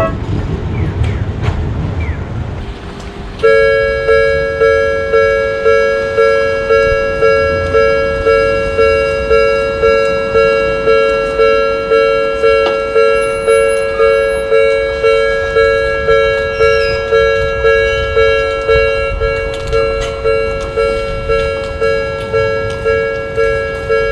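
Railroad crossing warning bell at a Toden Arakawa Line tram crossing, ringing in repeated decaying strikes about one and a half a second. It starts suddenly a few seconds in, after a low rumble from a passing train fades out.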